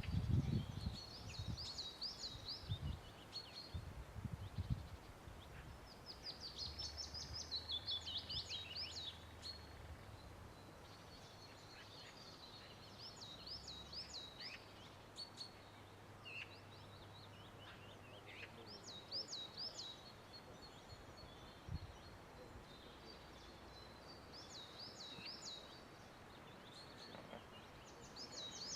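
A songbird singing short, quick, high phrases, each about two seconds long and repeated every four to five seconds, with a few single chirps between them.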